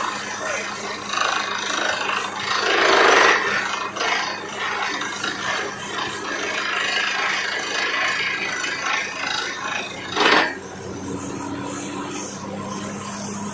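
Borewell drilling rig running: a steady low hum under a loud rushing noise, with two brief louder surges, about three seconds in and about ten seconds in.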